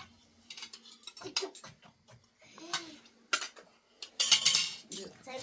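Cutlery and dishes clinking: a few separate clicks and clinks, with a brief louder rustling scrape about four seconds in.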